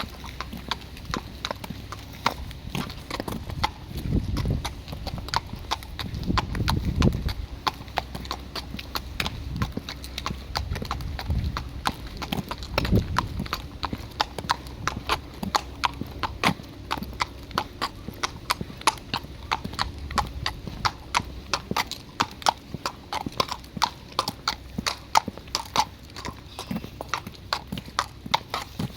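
A dog crunching something hard: a long, unbroken run of sharp crunches, about three or four a second.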